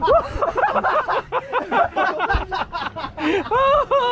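Men's voices making wordless sounds: short, broken vocal noises, then a longer, wavering drawn-out one near the end.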